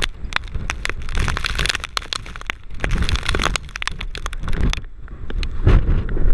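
Rain and hailstones pelting the vehicle in many sharp, irregular hits, densest in the middle and thinning out about five seconds in. Near the end, wind gusts against the microphone in a loud low rumble.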